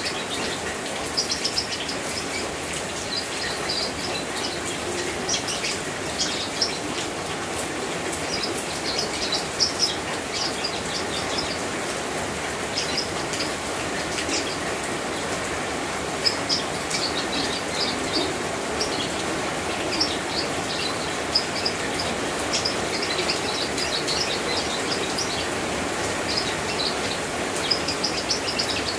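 Steady rain with birds chirping in quick high runs of notes that come and go, and a few sharp ticks standing out above the rain.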